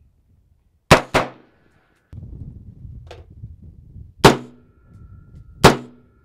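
Four rifle shots from an AR-15-style rifle: two in quick succession about a second in, then two more about a second and a half apart later on. A short metallic ping comes between the two pairs.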